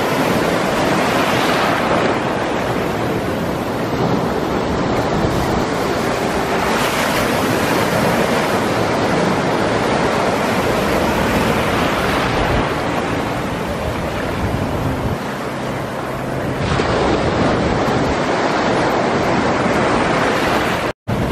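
Small ocean waves breaking and washing over shallow sand, swelling every few seconds, with wind buffeting the microphone. The sound cuts out for an instant near the end.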